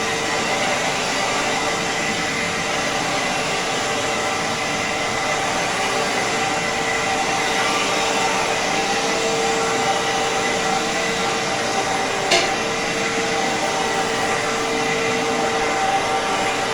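Iona Fantom Fury 10-amp vacuum cleaner running steadily with a constant whine. A single sharp knock sounds about twelve seconds in.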